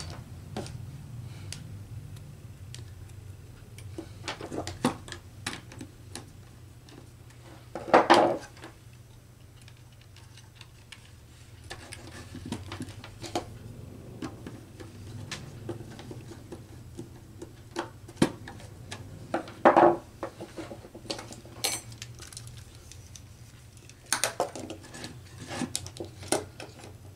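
Scattered clicks and knocks of hand tools, wires and small plastic electrical parts handled on a wooden workbench, including a screwdriver working the terminal screws of a DIN-rail power supply. Twice, about a third and two-thirds of the way through, louder handling noise; a low steady hum lies underneath.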